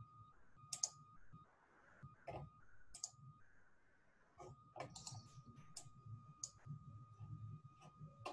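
Near silence with faint, irregular clicks from computer use on the call, about a dozen scattered through, over a faint steady high tone.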